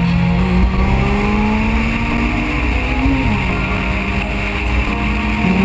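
Honda H22 four-cylinder in a Civic EK with full bolt-ons accelerating hard in a rolling race: the engine note climbs, drops at an upshift about three seconds in, then climbs again, over steady road and wind noise.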